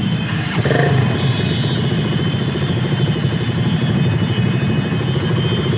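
Many motorcycle and scooter engines running together in a tightly packed, slow-moving group: a steady, low engine rumble.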